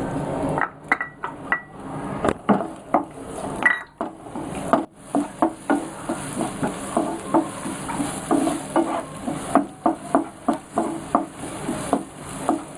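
Plastic spatula stirring chopped onions and green chilies in hot oil in a nonstick frying pan, knocking and scraping against the pan two or three times a second, over a light sizzle.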